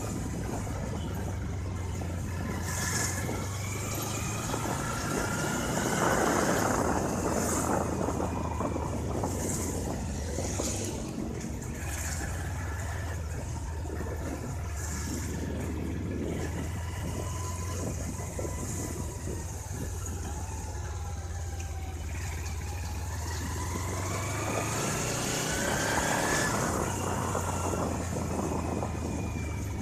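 A vehicle driving along a street: a steady low engine hum under road noise, with the engine pitch rising as it speeds up about five seconds in and again about three-quarters of the way through.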